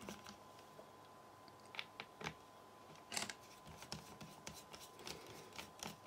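Faint, scattered small clicks and scrapes of a screwdriver turning out the captive screws that hold the hard drive bracket in a MacBook Pro.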